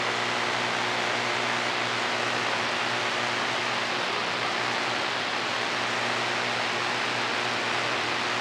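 CB radio receiver putting out steady static with a low electrical hum running through it. The operator suspects the buzz comes from a newly fitted amplifier; plugging into a different outlet has not cured it.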